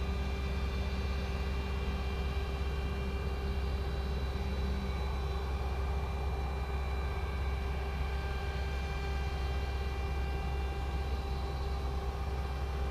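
A Boeing 757-200's jet engines running at a steady level on the runway after takeoff clearance: a whine of several high steady tones over a deep rumble.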